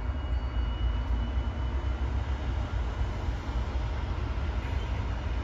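Sound decoder of an HO scale BNSF diesel locomotive model playing a diesel engine idling: a steady low rumble with a faint hum above it, the locomotive holding at a red signal.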